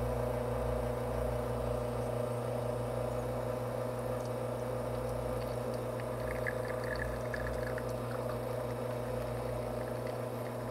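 Espresso machine pump humming steadily while it pushes water through the coffee puck during a shot, with faint trickling of espresso from the bottomless portafilter about halfway through.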